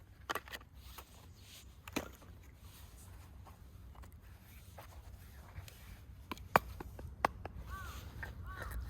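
Firewood being chopped or split: a few sharp, separate knocks with quiet gaps between them, the two loudest coming close together in the second half.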